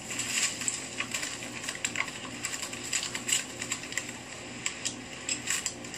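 Hurried footsteps crunching and scuffing over dry dirt and dead leaves, a continuous run of irregular crackling clicks, several a second.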